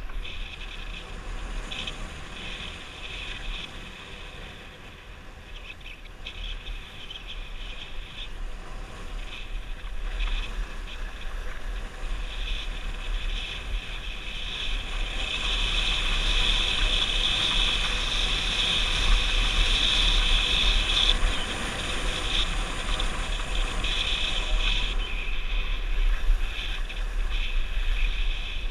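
Skis hissing and scraping over packed snow on a downhill run, with wind buffeting the camera's microphone as a low rumble. The hiss grows louder about halfway through and stays up to near the end.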